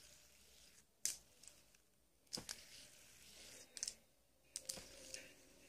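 Faint, scattered sharp clicks and taps of a fidget spinner being handled, tossed and caught in the hand, about six in all, the loudest about a second in.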